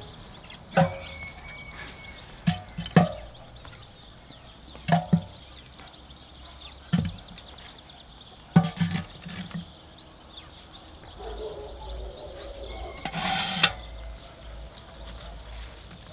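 Split firewood sticks dropped one at a time into a steel barrel stove, each landing with a short wooden knock: about nine knocks over the first ten seconds, a couple coming in quick pairs. A brief scraping rustle follows about 13 seconds in.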